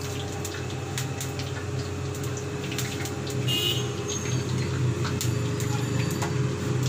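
Pakora batter frying in hot oil in a pan: scattered crackles and sizzling over a steady low hum, with a brief louder hiss about three and a half seconds in.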